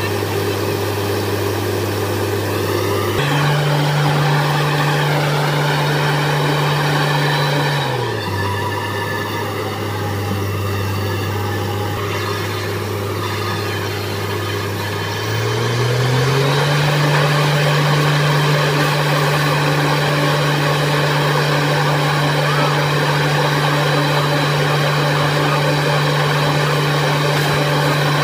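Borewell drilling rig's engine running steadily. It speeds up about three seconds in, drops back about eight seconds in, and speeds up again about sixteen seconds in, holding there.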